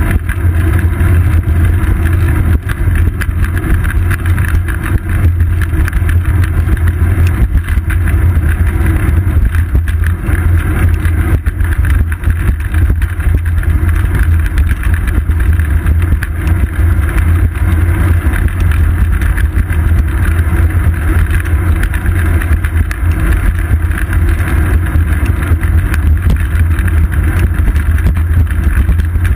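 Steady, deep rumble of wind buffeting and road vibration picked up by a GoPro Hero 2 mounted on a bicycle's seat post as the bike rolls along an asphalt street.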